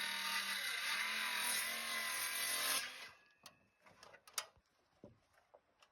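Steady mechanical whirring that cuts off abruptly about three seconds in, followed by a few faint clicks and taps.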